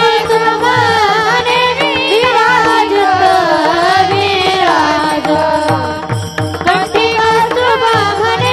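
A woman singing a Marathi devotional panchapadi, her melody gliding and ornamented over a steady drone, with steady low drum strokes and small hand cymbals keeping the beat.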